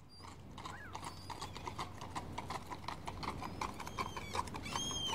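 Horse hooves clopping at a steady walking pace, growing louder as if approaching. A few short high calls sound over the hooves, one near the end.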